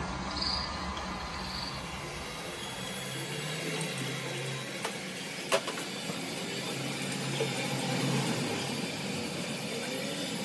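Electric heat gun running steadily, its fan blowing with a low motor hum, as it heat-shrinks window tint film on a car windshield. A single sharp click about five and a half seconds in.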